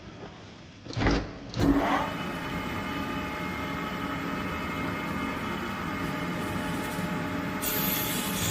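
A manual metal lathe starts about a second in: two loud clunks, then the motor and spindle spin up with a short rising pitch and run steadily with a hum of several tones. A hiss joins near the end.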